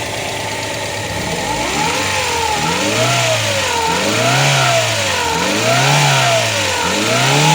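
Ford Ka 1.0 Zetec Rocam four-cylinder engine idling, then revved up and let fall back several times, about every second and a half. It runs without chain rattle after a new timing chain kit and oil pump, with a slight groan from the power steering pump.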